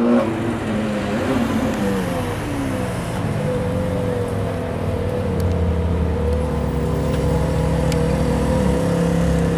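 Straight-piped Ferrari 430 Scuderia's flat-plane V8 running at low revs as the car rolls slowly by. The engine note rises and falls with light throttle for the first few seconds, then settles into a steady drone with a deep rumble underneath.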